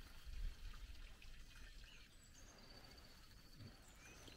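Near silence: a faint trickle of running water, with a soft low bump about half a second in.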